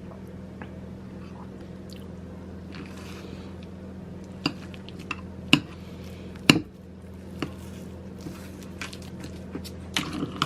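Sweet potato mixture squishing as it is mashed and mixed by hand in a bowl. A few sharp clicks and knocks come through, the loudest about five and six and a half seconds in, over a steady low hum.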